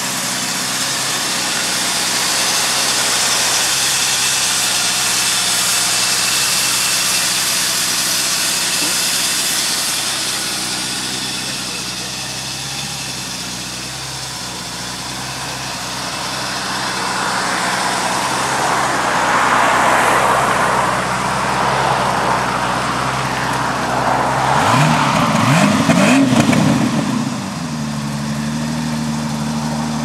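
Jaguar E-type's 5.3-litre V12 engine idling steadily, then revved up briefly near the end and let fall back to idle.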